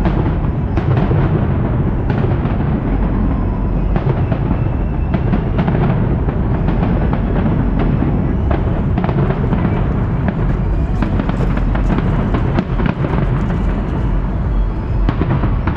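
A fireworks display with dense, continuous bangs and crackles under a steady low rumble, mixed with loud music.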